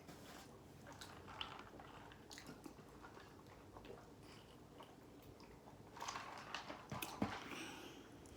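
Close-miked chewing and biting of fried chicken: soft wet mouth sounds and small crunches, quiet at first and louder from about six seconds in, where a cluster of crunchy bites comes through.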